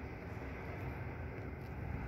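Steady low rumble of background noise inside a car cabin, even throughout with no distinct clicks or knocks.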